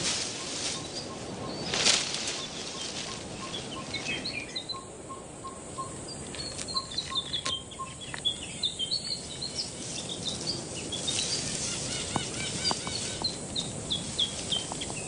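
Forest ambience with many small birds chirping and twittering, and a run of short, evenly spaced notes repeating for several seconds. A loud swishing noise comes near the start, strongest about two seconds in.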